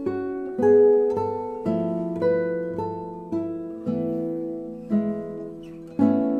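Background music: a slow melody of single plucked-string notes, a new note about every half second, each ringing and fading.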